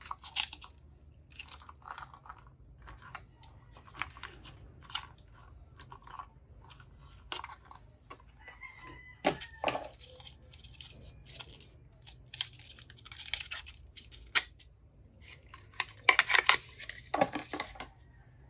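Cardboard and plastic retail packaging of a phone charger being handled and pulled apart by hand: crackling, tearing and rustling in short, irregular snaps, with a denser, louder burst of rustling near the end as the charger comes free.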